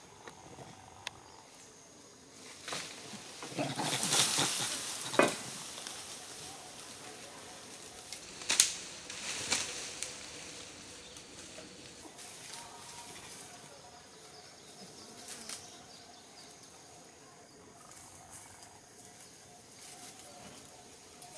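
Dry bamboo leaves and twigs rustling and crackling as a baby macaque scrambles and climbs through the leaf litter, with a few sharp snaps, the loudest about five and eight and a half seconds in.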